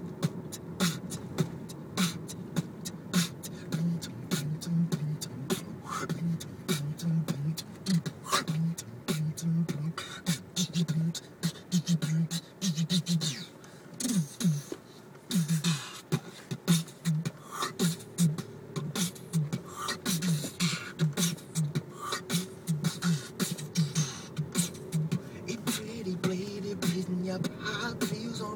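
Beatboxing: a continuous run of rapid percussive clicks and snare-like bursts from the mouth over a pulsing hummed bass line, inside a moving car's cabin.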